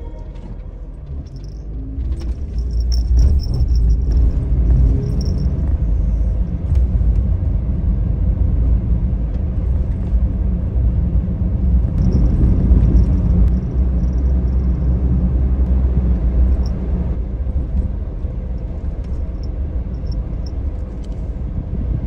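Low, steady rumble of a Suzuki Every Wagon kei van driving, heard from inside the cabin: engine and road noise, growing louder about two seconds in.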